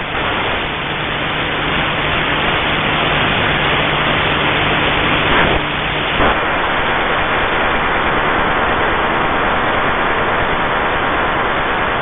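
Shortwave radio receiver hissing with static between signals, with a faint low steady tone that stops about six seconds in, just after a brief crackle.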